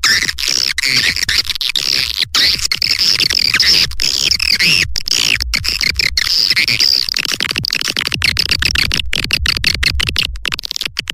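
Swiftlet lure recording: a dense, continuous twittering of many swiftlet chirps, high-pitched and wavering, cut by frequent brief gaps, with a low rumble underneath.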